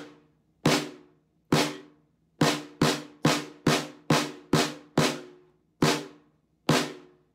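Snare drum with wooden hoops struck with wooden sticks in single strokes, each ringing briefly: two spaced strokes, then a quicker, even run of seven, then two more spaced strokes.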